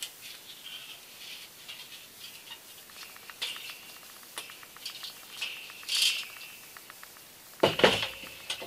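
Bare steel seat frame with zigzag sprung wire being handled: light metallic rattles, scrapes and squeaks from the springs and frame, then a few loud knocks near the end as the frame is lowered against the table.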